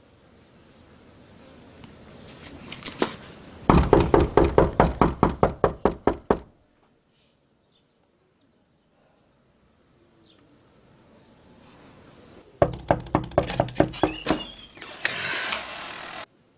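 Rapid, insistent knocking on a door in two runs: a long quick volley of raps about four seconds in, and a shorter one about thirteen seconds in. Near the end a short burst of hissing noise follows.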